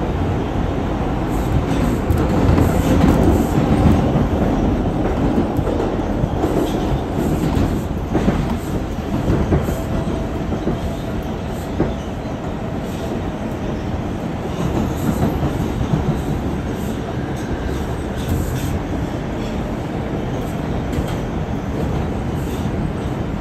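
An R142 subway car running at speed through the tunnel, heard from inside the car: a steady rumble of wheels on rail with repeated clicks. It is louder for a couple of seconds near the start.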